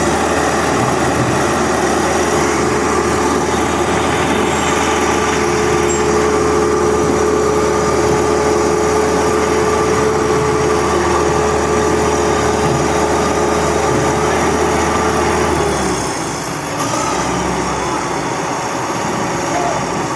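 Heavy diesel machinery engine running steadily, with a high whine that stops about sixteen seconds in, after which the engine note changes.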